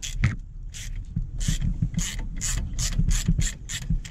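Socket ratchet clicking in short repeated bursts, two or three a second, as it winds off the small rusty nut of a brake-hose retaining bracket, a nut that has come undone without snapping.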